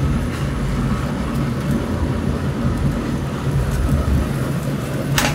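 Steady low rumble of gas burners under pans of boiling water in a restaurant kitchen, with one sharp clink near the end.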